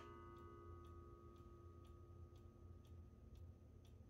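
1950s German one-day cuckoo clock ticking faintly, about two ticks a second. A faint ringing tone dies away over the first few seconds.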